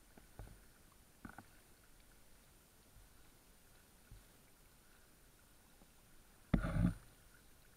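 Double-bladed kayak paddles dipping into calm river water: a few soft splashes and drips, then one louder splash about six and a half seconds in.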